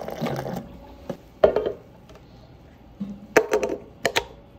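Hot water pouring from a water dispenser's tap into a stainless steel mug, stopping about half a second in. Then a few sharp clinks and knocks as the mug is handled, the loudest a second and a half in and a quick cluster near the end.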